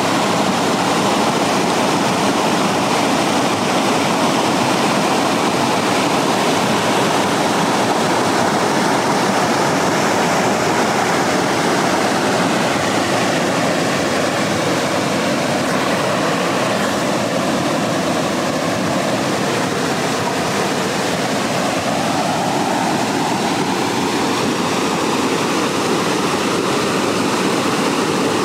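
Mountain stream rushing over small rocky cascades: a steady, loud rush of white water.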